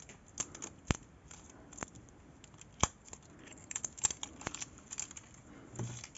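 Scattered small, sharp clicks and taps as a gel polish bottle and a plastic nail-tip stand are handled, with fingernails knocking against them.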